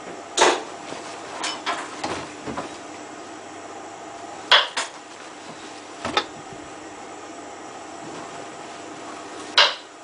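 Shirts being loaded by hand into the open drum of a Samsung WF8804 front-loading washing machine: a scatter of short, sharp clacks and knocks, the loudest about half a second in, at four and a half seconds and near the end.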